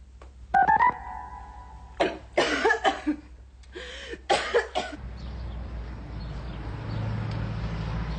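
A woman coughing and spluttering in fits after gulping down a strong drink, after a short loud rising high sound about half a second in. From about five seconds in, a steady low hum takes over.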